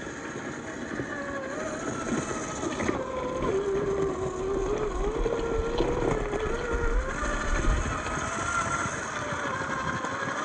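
Electric drive of a TRX4-chassis RC crawler, a 550-size 21-turn motor through the transmission, whining as the truck climbs loose dirt. The whine sinks in pitch under load from about three seconds in and rises again after about seven seconds as the load eases.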